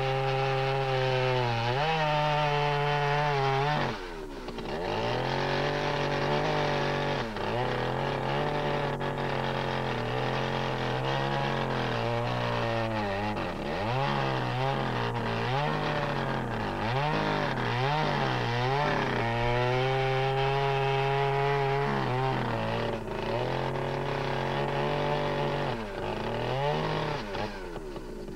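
Two-stroke chainsaw running under load, cutting into a hickory log. Its engine pitch sags and climbs back again and again as the chain bites into the wood, with a brief drop in speed about four seconds in.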